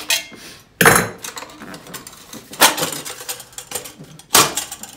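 Metal clanks and clicks from working a pipe guard's metal mounting tab with needle-nose pliers against a chrome two-stroke expansion chamber, and from handling the pipe: three sharp clanks, the loudest about a second in, with lighter clicks between.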